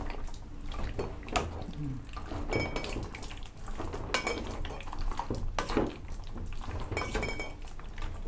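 A spoon stirring chunks of pork neck in a stainless steel mixing bowl, clinking and scraping against the bowl's side as the meat is worked into a batter-and-fish-sauce marinade. Twice, at about two and a half seconds and about seven seconds, the steel bowl rings briefly.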